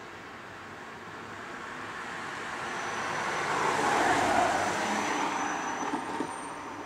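A road vehicle going past, its engine and tyre noise swelling to a peak about four seconds in and then fading, with a faint high whine through the loudest part.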